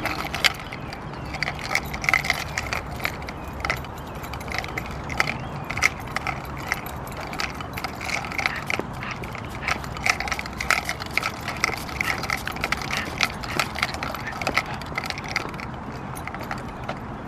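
Irregular light metallic jingling and clicking, with small ringing tones, over a steady low hum.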